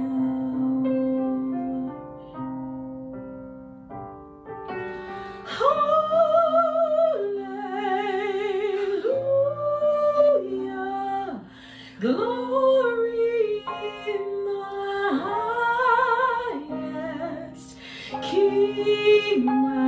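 Solo soprano singing a holiday hymn with wide vibrato over steady instrumental accompaniment, the voice swelling into long, loud held notes from about five seconds in.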